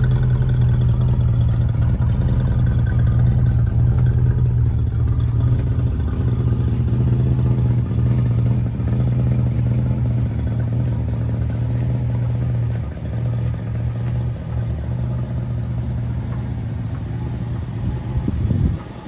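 1967 Ford Mustang convertible's engine idling steadily through its twin tailpipes, a low even hum. It gets somewhat quieter in the second half and drops sharply near the end.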